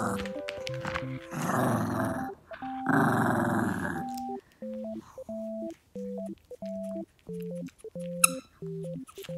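Maltese dog growling while tugging on a plush toy in play, three growls in the first four seconds. A brief high squeak comes near the end.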